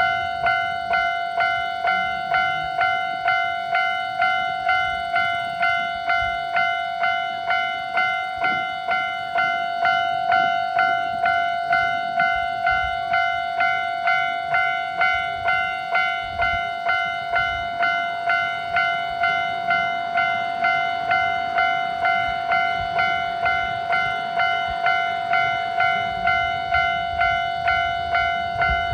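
Japanese level-crossing alarm ringing its repeated 'kan-kan' strikes, about one and a half a second, a steady ringing tone that fades a little after each strike. A low rumble comes and goes underneath.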